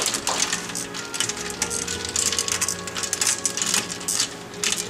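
Ice cubes clinking and steel tongs knocking against a metal pot as noodles are stirred in ice water, many quick irregular clinks, over soft background music.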